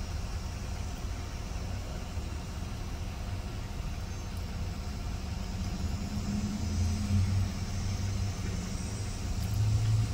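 Steady low rumble of an idling engine, with a hum that swells briefly about six seconds in and again near the end.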